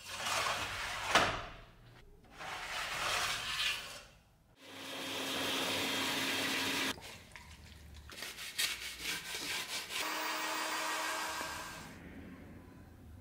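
Quick run of workshop sounds: rough scraping with a sharp knock about a second in, then a shop vacuum hose running steadily as its nozzle sucks wood shavings off carved wooden strips, followed by a few clicks and another stretch of steady noise.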